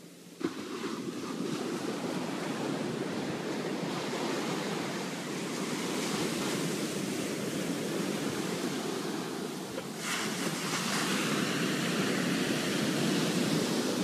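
Ocean surf washing up a sandy beach: a steady rush of foaming water that comes up suddenly about half a second in.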